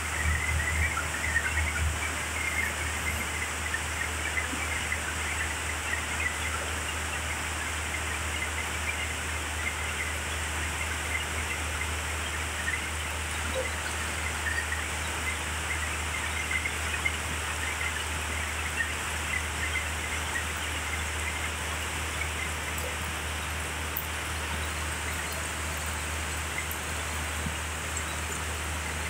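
Heavy rain falling steadily onto a paved, puddled courtyard, a continuous even hiss, with a steady low hum underneath.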